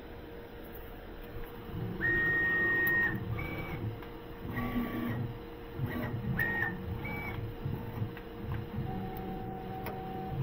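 Tormach PCNC 440 CNC mill jogging its axes in a series of short moves, each a steady high whine from the axis motors. The longest lasts about a second, starting some two seconds in, and several shorter ones follow at slightly different pitches, over a steady hum. The moves bring a spindle-mounted dial indicator onto the workpiece to touch off its position.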